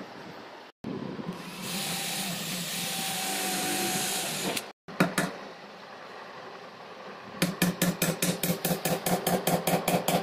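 A hammer driving a thin nail into the edge of a wooden panel: a couple of single knocks about halfway through, then a quick, even run of light strikes, about five a second, in the last few seconds. Before that comes a steady whirring noise for a few seconds.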